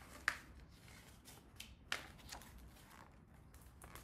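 A page of a hardcover picture book being turned by hand: paper rustling, with two sharp flicks of the page about a quarter second in and again near two seconds in.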